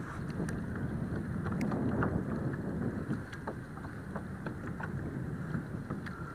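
Wind buffeting the microphone and small waves lapping against a plastic fishing kayak's hull, with a few faint scattered clicks.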